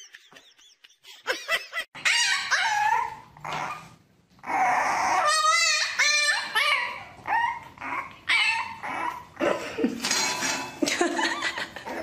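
A French bulldog puppy yapping and whining: a rapid, continuous run of high, bending yelps and whimpers that starts about two seconds in.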